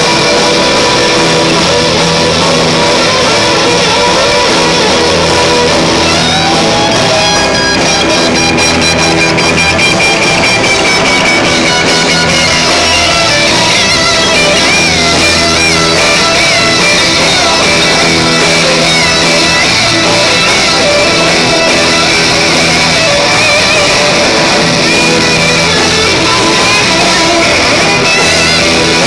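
Rock band playing an instrumental stretch, electric guitars strumming over a full, loud band. A high, wavering lead line comes in through the middle.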